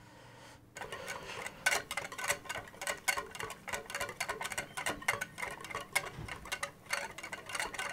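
Wire whisk beating a thin yogurt-and-spice marinade in a glass bowl, its wires clicking against the glass in a fast, even rhythm. The whisking starts a little under a second in.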